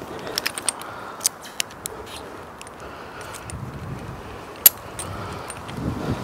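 Metal climbing hardware clicking and clinking as rope and carabiners are handled around a tree stem while a climber sets an anchor point. There are several sharp clicks in the first couple of seconds and one louder click about three-quarters of the way through.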